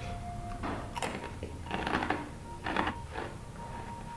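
Crisp jengkol crackers (kerupuk jengkol) being crunched and chewed: a handful of crunches about a second apart.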